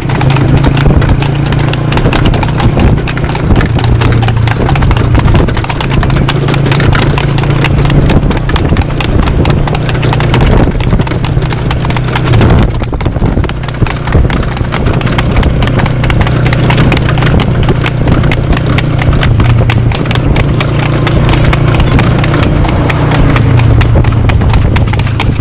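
A horse's hooves clip-clopping rapidly at a fast trot on a paved road as it pulls a two-wheeled cart, over a steady low rumble.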